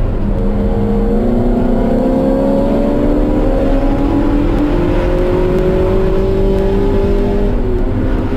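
Race car's engine on track, climbing steadily in revs through one long pull and dropping back in pitch near the end as it shifts up, over a constant low rumble.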